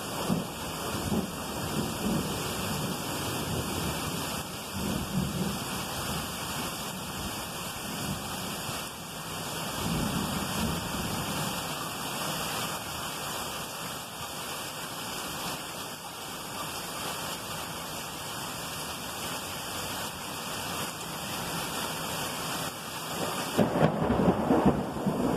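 Heavy thunderstorm downpour: a steady hiss of rain with thunder rumbling underneath several times, the storm swelling louder near the end.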